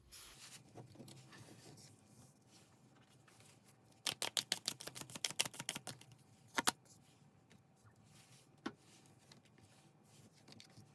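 A quick run of about twenty light clicks over some two seconds, then a couple more single clicks, over faint room tone.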